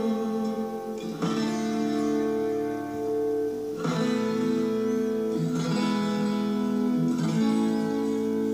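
Acoustic guitar strumming sustained, ringing chords, with a new strum about every two seconds, played over a radio.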